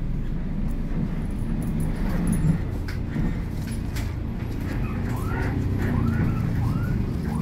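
City bus engine idling steadily, heard from inside the cabin, with a few sharp clicks. From about five seconds in, short chirps repeat roughly twice a second.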